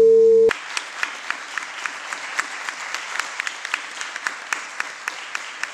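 A steady held tone from the performance music stops abruptly about half a second in. Applause follows: a crowd clapping, with many separate claps heard in it.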